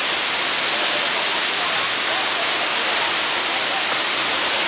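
Waterfall cascading down a rock face: a steady, unbroken rush of falling water, heaviest in its hiss.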